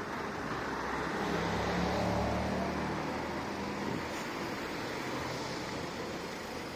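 Urban traffic noise, with a vehicle's low engine hum swelling and then fading over a few seconds as it passes.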